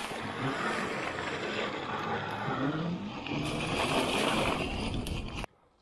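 Electric dirt bike riding through mud and water: a steady rush of churning and splashing that cuts off abruptly near the end.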